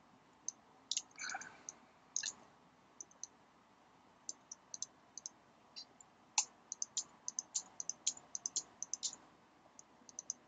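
Computer keyboard keystrokes and mouse clicks, short and irregular, coming thickest from about six to nine seconds in.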